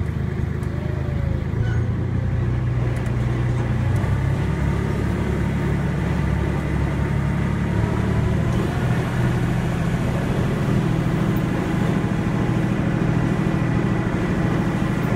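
Steady low rumble of a moving train's running noise, heard from on board as it rolls along.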